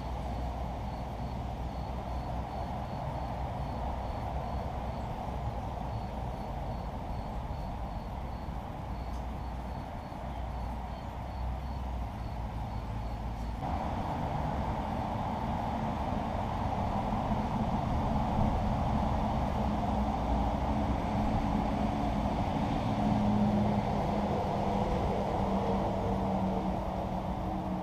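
Steady road traffic noise from passing vehicles; in the second half a truck's engine drone grows louder, peaking near the end.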